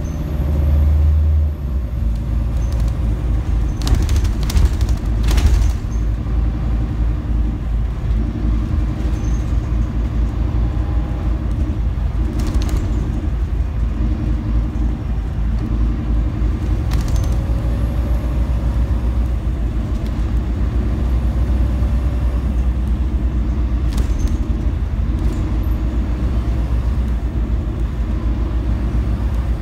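Scania N250UD Enviro 400MMC double-decker bus under way, heard from inside on the top deck: the diesel engine's steady low drone and road rumble, with occasional sharp knocks and rattles as the bus goes over bumps.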